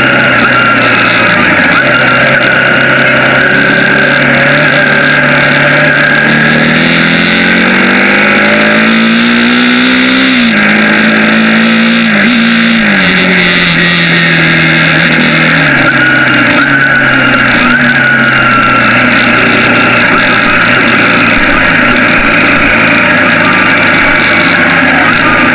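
Bajaj Pulsar 200NS's single-cylinder engine running on the move, revving up through a gear, dropping sharply twice, then easing off as the bike slows and settles to a steady cruise. Steady wind rush over the microphone runs throughout.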